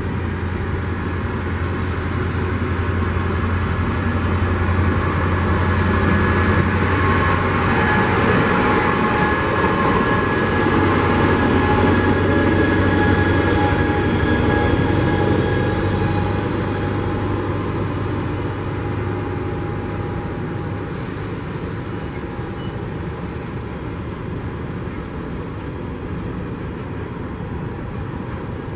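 Amtrak Cascades Talgo passenger train rolling past, with its Siemens Charger diesel-electric locomotive going by at the rear. The rumble is loudest about twelve seconds in, with a few steady high tones over it, then fades as the train pulls away.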